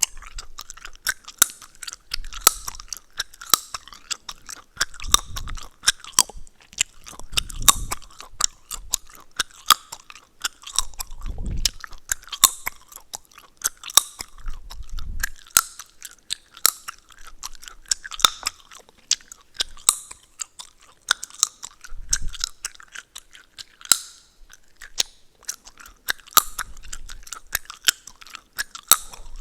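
Close-up mouth sounds of chewing gum: wet smacking and irregular sharp cracks and clicks, several a second, with now and then a low thud.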